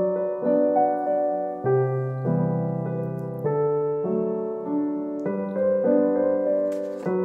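Soft background piano music: gentle chords and a slow melody, a new chord struck every second or so.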